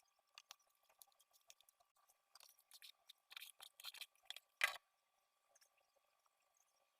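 Chin chin dough being worked by hand: a quiet run of short soft squishing and scraping sounds, ending in one sharper knock, over a faint steady hum.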